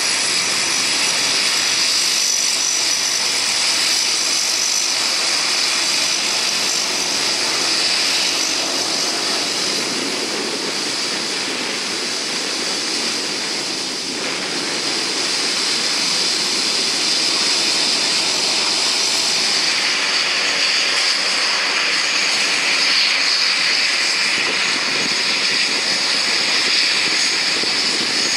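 Lockheed C-130 Hercules turboprop engines running as the aircraft taxis: a steady loud engine rush with a high whine, dipping slightly for a few seconds midway.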